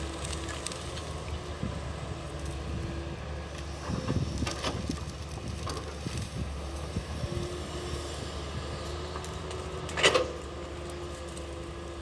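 Hitachi crawler excavator's engine running steadily while it clears grass, with a faint whine over the low drone. Crackling and clicks come about four seconds in, and a single sharp, loud knock about ten seconds in.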